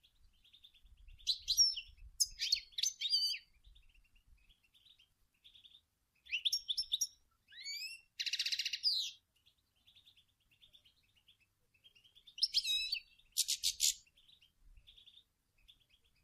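European goldfinch singing: three bursts of quick, high twittering phrases, the middle one holding a buzzy note, with softer chatter in between.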